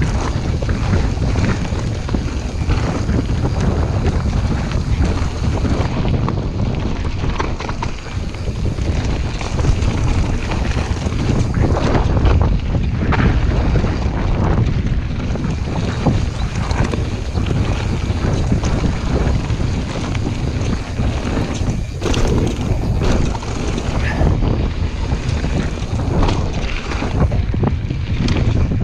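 Wind buffeting a chest-mounted GoPro Hero 5 microphone during a fast mountain-bike descent, over the rumble of YT Jeffsy tyres on dirt and gravel, with frequent short clattering knocks from the bike on rough ground.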